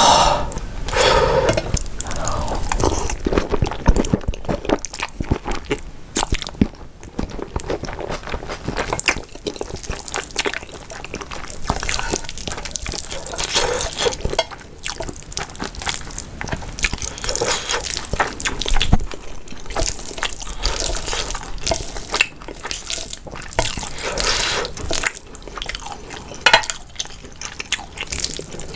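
Close-miked wet eating sounds: a person slurping and chewing saucy spicy stir-fried instant noodles and fried egg, with irregular wet smacks and clicks throughout, loudest in the first couple of seconds.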